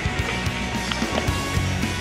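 Background music with steady low bass notes.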